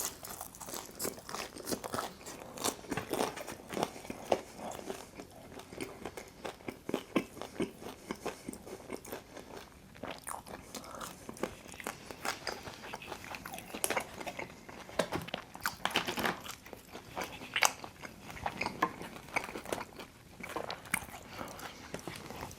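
Close-miked biting and chewing of Detroit-style pizza, with irregular crunches and clicks from the crisp crust.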